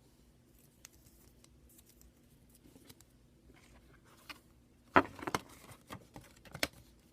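Small objects being handled: a few faint clicks, then a quick cluster of sharp clicks and taps starting about five seconds in, the loudest at its start.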